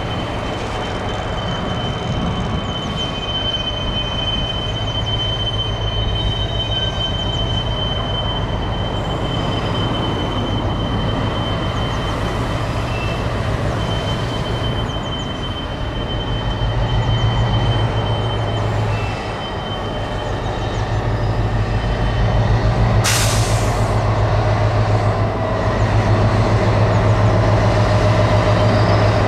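Class 60 diesel-electric freight locomotive hauling a loaded stone train at low speed. Its eight-cylinder Mirrlees diesel drones steadily while wheel flanges squeal with a thin, steady high tone through the first half. The engine grows louder in the second half as the locomotive draws close, with a short hiss about three-quarters of the way through.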